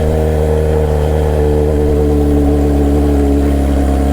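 Sport motorcycle engine running at a steady pitch under way, easing off slightly about three seconds in, over a heavy low rumble.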